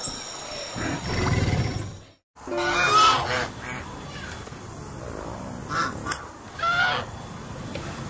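A low, rumbling dinosaur growl that cuts off about two seconds in. After a brief silence come several honking waterfowl calls, the loudest about a second later and two more near the end.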